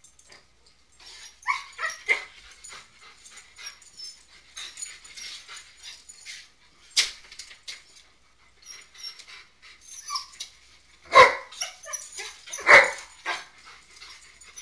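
Husky-type dogs making short yips and whines, then two loud barks near the end, over scuffling and clicking.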